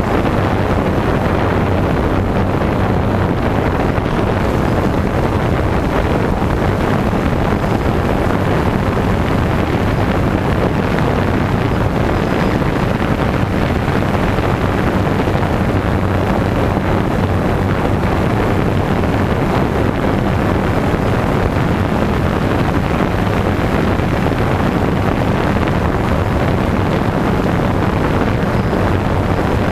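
DJI Phantom 2 quadcopter's motors and propellers running, heard from the GoPro carried beneath it: a steady low hum over a rushing noise, with wind on the microphone.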